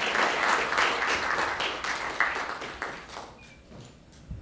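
Audience applauding, dying away about three and a half seconds in; a low thump near the end.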